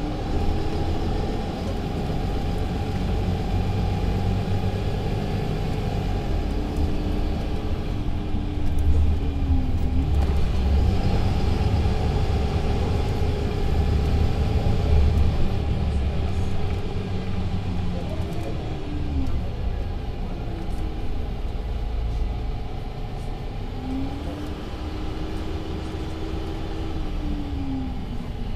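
Mercedes-Benz Citaro C2 LE city bus with a Voith automatic gearbox, heard from inside while driving: a low rumble from the engine and running gear, loudest about a third of the way in. A whining tone rises, holds and falls away several times.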